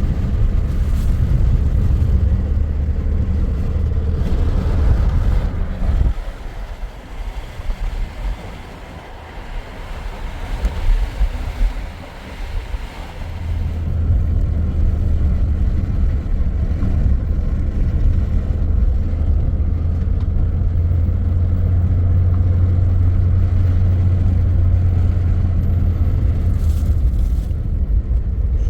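Motor vehicle running: a steady low engine hum that fades for several seconds about six seconds in, then comes back.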